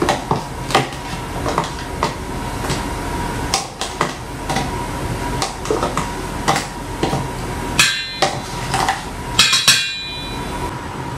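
A utensil knocking and scraping inside a plastic container to get out sticky honey sauce, with irregular taps throughout. Twice near the end it strikes the stainless steel mixing bowl, which rings briefly.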